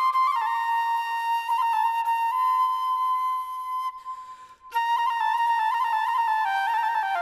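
Background music: a solo flute plays an ornamented folk-style melody, with a short break about four seconds in.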